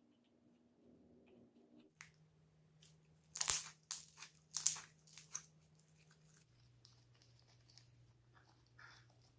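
Slime being mixed, with a run of sharp crackling pops and clicks from about three to five and a half seconds in, and fainter clicks and squelches around them.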